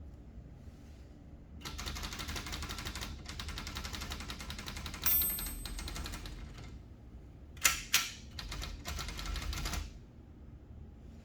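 Typing on a Brother Charger 11 manual typewriter: two runs of rapid key strikes. About halfway through comes a short bright ding, and two loud clacks follow before the second run.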